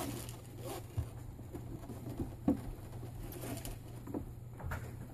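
Scattered light knocks and scuffs from a plastic Little Tikes Cozy Coupe ride-on toy car as a toddler opens its door and climbs out.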